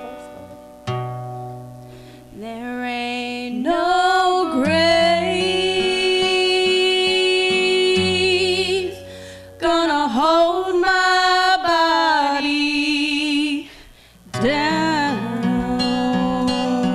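Acoustic guitar strummed under a woman singing long held notes with vibrato, in phrases broken by short pauses about 9 and 14 seconds in.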